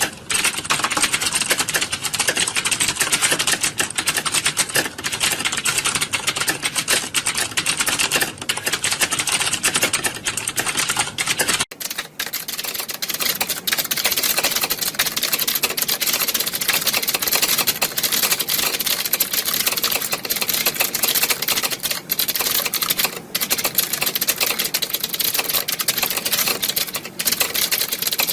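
Dense, continuous clatter of many computer keyboards being typed on at once, as in a typing-test exam hall. About twelve seconds in the sound abruptly changes character, becoming thinner and brighter, as if cut to another recording of the same clatter.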